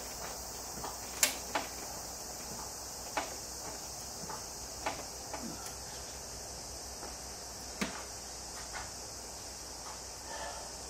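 Steady high-pitched hiss of background ambience, broken by a handful of short sharp clicks and knocks; the loudest click comes about a second in.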